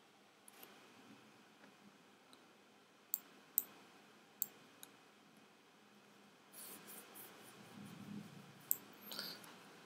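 A few isolated clicks of a computer mouse over quiet room tone: two close together about three seconds in, one about a second later, and another near the end, with faint rustling before it.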